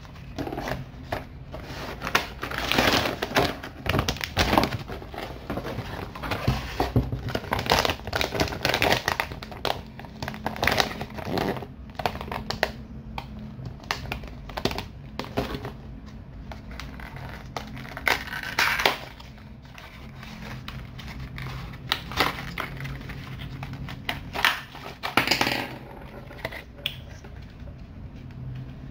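Plastic and cardboard packaging being handled and unwrapped: irregular crinkling and rustling in bursts, with small clicks and taps, as a plastic bag and a clear plastic sleeve are crumpled and a paper box is handled.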